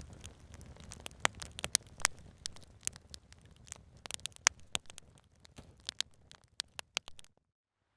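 Campfire crackling, with irregular sharp pops and snaps of burning wood, several a second, thinning out before cutting off abruptly near the end.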